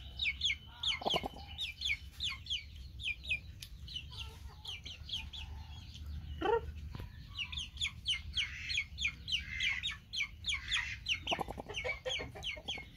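Chicks peeping: a steady stream of short, high, falling peeps, with a few lower calls mixed in.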